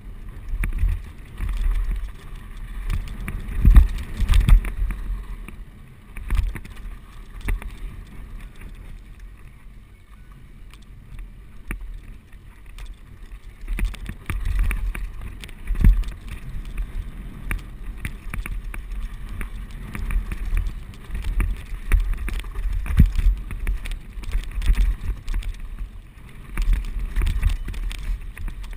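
Mountain bike riding fast down a rough dirt track with loose stones: wind buffeting the microphone, with the rattle and sharp knocks of the bike over the bumps. It eases to a quieter stretch about a third of the way through, then picks up again.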